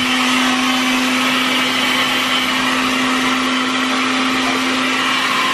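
Countertop blender motor running at a steady speed with a loud, even whine, being run to clean the jar.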